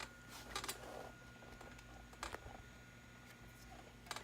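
Faint steady electrical hum with a thin high whine, broken by a few short clicks.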